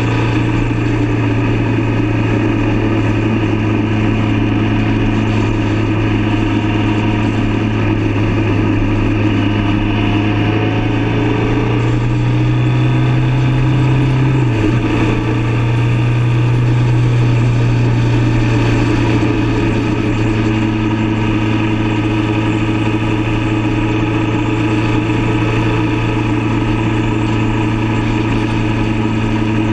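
Motorcycle engine running steadily at cruising speed under a rushing haze of wind noise. About halfway through, the engine note climbs a little and then dips sharply for a moment before settling back to a steady drone.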